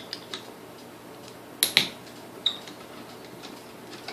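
Light clicks and knocks from hand-turning and handling the metal parts of a partly disassembled Sunbeam Mixmaster Model 9 mixer, with a sharp double click about halfway through and a short metallic ping just after.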